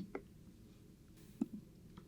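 A few short, sharp clicks: one just at the start, then a quick double click about a second and a half in.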